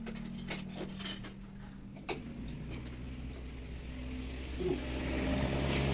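Metal tools clicking and knocking as a motorcycle's rear wheel is being taken off, with one sharper knock about two seconds in. Under it runs a steady low engine hum, and a motor vehicle grows louder toward the end.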